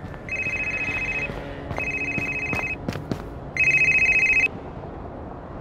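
Mobile phone ringtone: three electronic rings of about a second each, a steady high tone with short gaps between. The third ring is the loudest.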